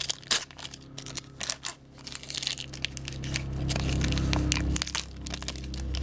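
A hockey card pack wrapper being torn open and crinkled, with a dense run of sharp crackles over the first three seconds.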